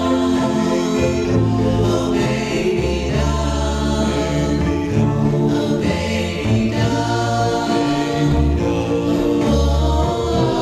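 Early-1960s doo-wop record: a vocal group singing held close-harmony notes over a band, with bass notes changing every second or so.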